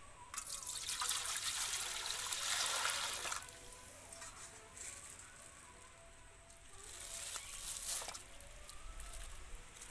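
Water poured from a bowl into a large aluminium pot, splashing for about three seconds. A shorter splash follows a few seconds later as raw chicken pieces are tipped from a plastic bag into the water.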